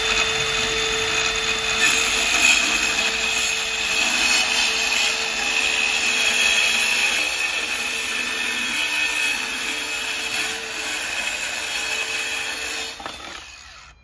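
DeWalt Atomic 20V MAX 4-1/2-inch brushless cordless circular saw running at full speed and cutting through a 3/4-inch wooden board: a steady motor whine over the noise of the blade in the wood. Near the end the saw stops and winds down.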